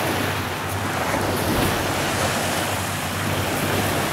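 Steady rushing noise of waves washing on the shore, mixed with wind on the microphone, with a faint low steady hum underneath.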